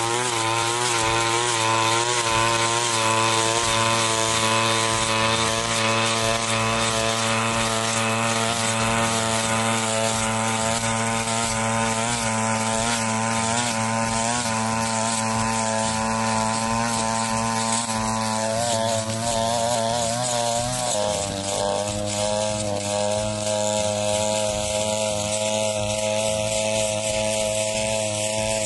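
Backpack brush cutter engine running at working speed while its cutting head sweeps through dry, dead grass; the engine note wavers continually as it takes the load and shifts about two-thirds of the way through.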